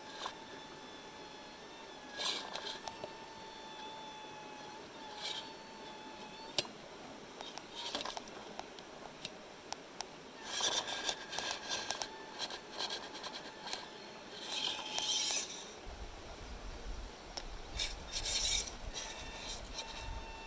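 Small RC crawler driving: a thin whine from its small brushed electric motor comes and goes, with irregular bursts of scraping and rubbing. A low rumble joins near the end.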